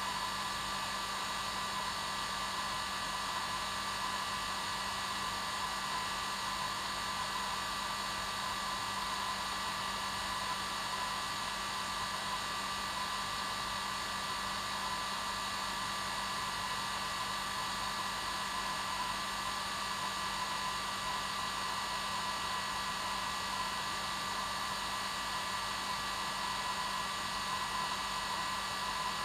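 Hair dryer running steadily with an unchanging whine over a blowing hiss, played as white noise for lulling a baby to sleep.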